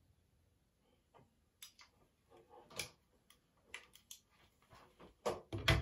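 Irregular clicks and taps from a curling iron being handled: its spring clamp opening and snapping as it is released from a curl. A louder knock comes near the end as the iron is set down.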